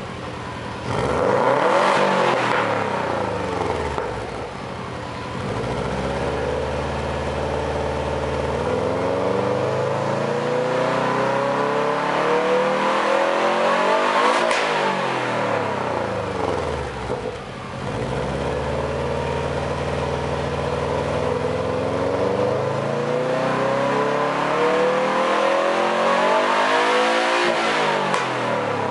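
Exhaust of a Subaru Impreza WRX's warmed-up 2.0-litre turbocharged flat-four, free-revved while parked. A quick rev up and down comes first, then two slow climbs in revs, one peaking around the middle and one near the end, each falling back quickly.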